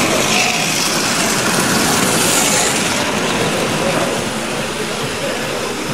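Tri-ang TT gauge model train running past on its track, a continuous rattle and hiss of motor and wheels. It is loudest about two seconds in, then eases off as the wagons go by.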